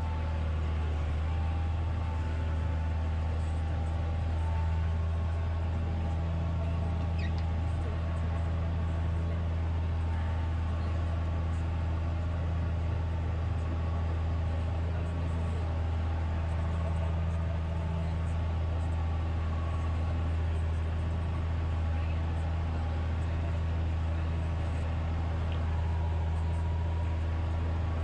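Tractor engine running steadily under load while pulling a multi-furrow plough through the soil, an even, unbroken drone.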